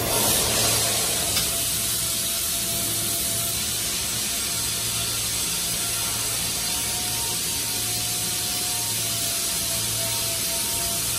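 Steady industrial shop noise: a constant machinery hum under an even hiss, with a brief louder swell about a second in.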